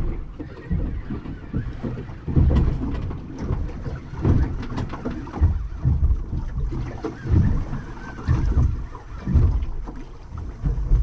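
Wind buffeting the microphone in irregular low rumbling gusts, with water slapping against the hull of a small boat at anchor.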